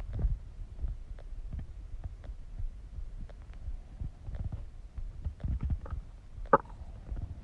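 Stomach growling and gurgling as it digests: irregular low rumbles, with one short, sharper gurgle about six and a half seconds in.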